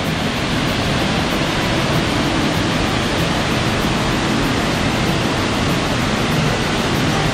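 Savica waterfall, a steady, even rush of falling water.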